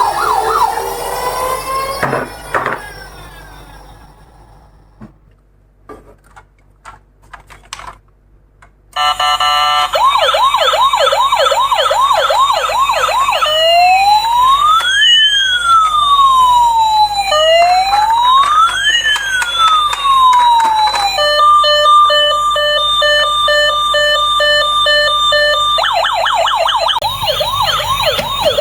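Electronic ambulance siren. It fades out in the first two seconds and a few seconds of quiet with scattered small clicks follow. About nine seconds in it comes back loud and cycles through modes: a fast yelp of about three sweeps a second, two slow rising-and-falling wails, a steady pulsing beep, then the fast yelp again.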